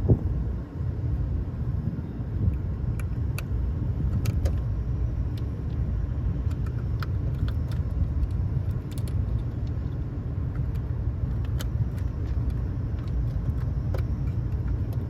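Scattered small metallic clicks and rattles of hand work on an HVAC unit's control-transformer wiring, over a steady low mechanical rumble.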